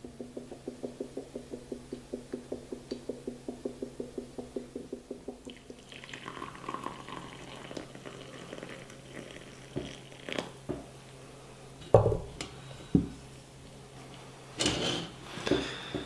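Siphon coffee maker gurgling in a regular rhythm, about four pulses a second, as the last of the brewed coffee and air are drawn down through the cloth filter into the lower glass globe. After about six seconds the gurgle gives way to coffee pouring from the globe into a ceramic mug, then two sharp knocks as things are set down.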